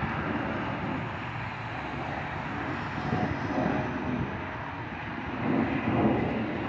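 Turbofan engines of a rear-engined regional jet passing overhead: a steady, broad jet rumble that swells again about five and a half seconds in.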